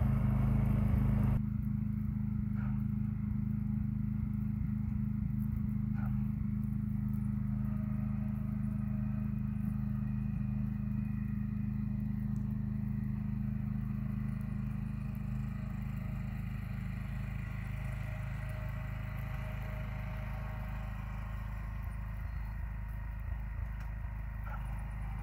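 John Deere garden tractor engine running steadily while it plows snow off a driveway with its front blade. The level drops suddenly about a second and a half in, then slowly fades as the tractor moves away.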